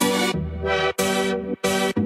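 Electronic background music: synth chords in a chopped rhythm, each block cutting off sharply about every half second.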